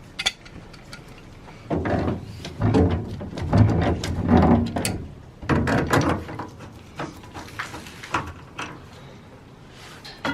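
Clatter and knocking of flush hoses and their fittings being unscrewed and pulled off a tankless water heater's service valves: a click at the start, a few seconds of irregular rattling in the middle, then scattered small clicks.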